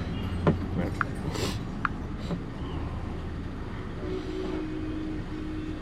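Hyundai Grand i10 petrol engine idling steadily, with a few light clicks in the first two seconds.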